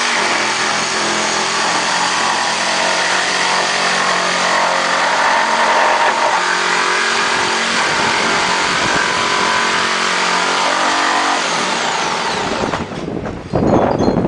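Jigsaw with a wood blade on fast speed cutting through pallet wood, its motor running steadily. It eases off briefly near the end and picks up again.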